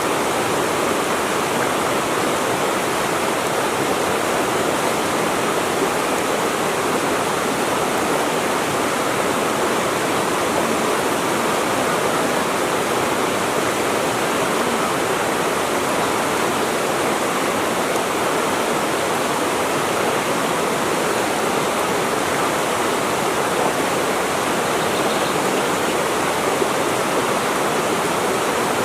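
Steady rush of flowing water, an even hiss-like noise with no breaks or separate splashes.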